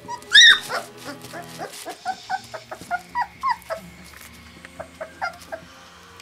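3½-week-old black Labrador retriever puppies whimpering and yipping in a string of short, high whines. The loudest is about half a second in.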